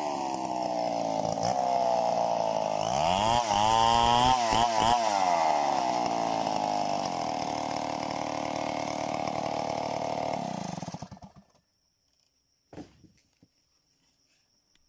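Gasoline chainsaw cutting mahogany: the engine revs up and down for the first few seconds, then runs steadily at high speed. It cuts out about eleven seconds in, leaving a few faint knocks and a thin, steady high tone.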